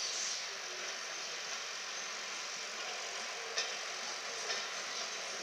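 Steady hiss of a distant steam-hauled train standing at the platform, with a faint click about three and a half seconds in.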